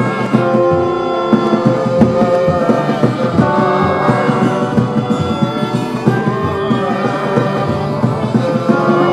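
Freeform live instrumental music: several held, droning tones layered together over frequent, irregular percussive hits.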